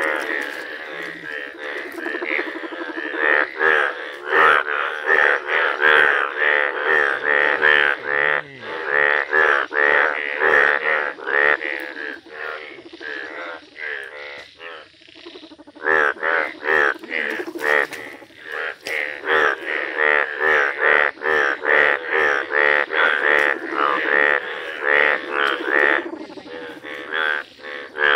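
Breeding chorus of male Indian bullfrogs, several calling at once with their vocal sacs inflated: overlapping runs of rapidly repeated croaks, with a short lull about halfway through.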